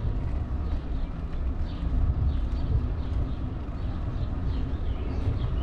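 Wind buffeting a helmet- or bike-mounted camera microphone and tyre rumble from a bicycle rolling along at a moderate pace, a steady low rumble. Birds chirp faintly in short, falling notes.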